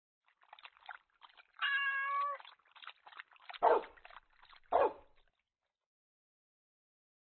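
A cat meowing: a drawn-out meow that drops in pitch at its end about two seconds in, then two short meows about a second apart, with faint scratchy clicks around them.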